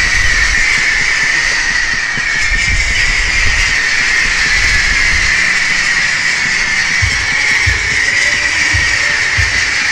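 Fireworks hissing steadily as spark-trailing shells rise, with several dull low thumps at irregular intervals.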